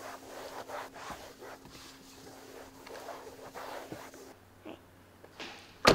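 Microfiber towel rubbing across a car's plastic dashboard in repeated back-and-forth swishes, over a faint steady hum. The wiping fades about four seconds in, and a single sharp loud knock comes right at the end.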